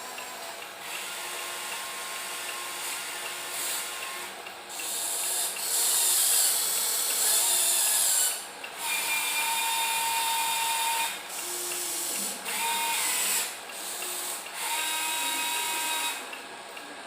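Small electric motors and gearboxes of radio-controlled construction models whirring with a whine, running in short spells that start and stop about seven times.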